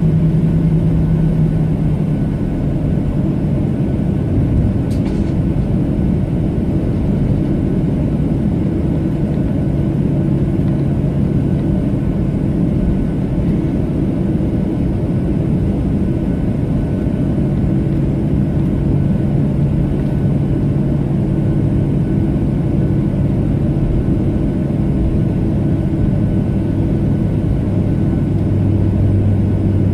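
Jet airliner taxiing, heard from inside the cabin: the engines at low taxi power make a steady rumble with a low hum whose pitch shifts slightly over time.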